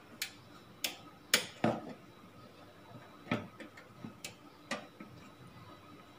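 Irregular sharp metal clicks and knocks from a screwdriver and fingers against the sheet-steel drive bay of a PC tower case, about eight in all, the loudest about a second and a half in.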